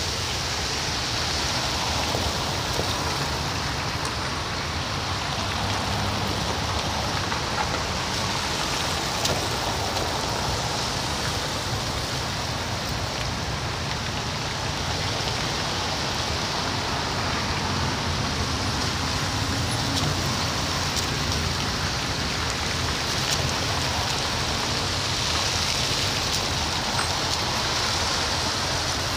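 Steady road traffic on a wet, slushy road: car engines running with the hiss of tyres through water.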